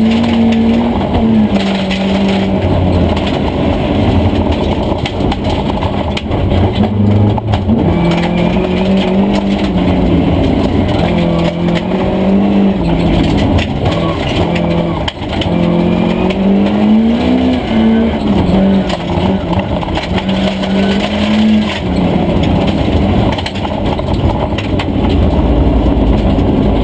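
Volvo 240 Group H rally car's engine heard from inside the cabin at full stage pace, its pitch climbing and dropping back again and again as it is driven hard through the gears. Gravel rattles against the underside throughout.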